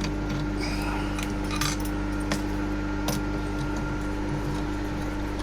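Light metallic clinks and knocks of small steel parts and tools being handled, scattered over a steady electrical machine hum.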